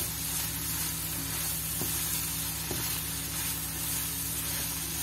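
Okra and onion-tomato masala sizzling steadily in hot oil in a nonstick wok while a spatula stirs them together, with a couple of light spatula knocks partway through.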